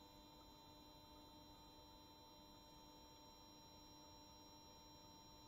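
Near silence: room tone with a faint steady hum and a few thin, steady high tones.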